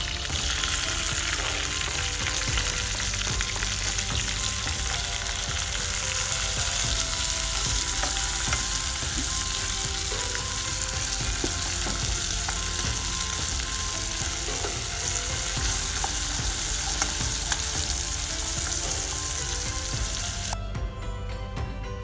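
Food sizzling steadily in hot oil in a pan, a dense crackling hiss that cuts off shortly before the end, with faint background music underneath.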